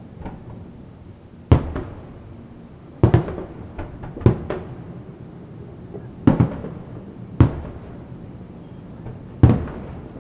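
Aerial firework shells bursting: about six sharp booms at irregular intervals, each trailing off in a short rumble, with a few smaller pops between them.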